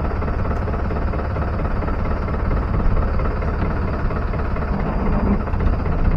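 Fishing boat's engine running steadily under way, a continuous low drone with no breaks.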